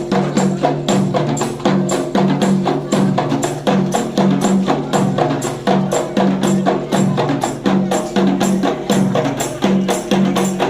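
Rebana frame drums playing a quick, steady rhythm of sharp strikes over a low bass line that steps between notes: instrumental sholawat music.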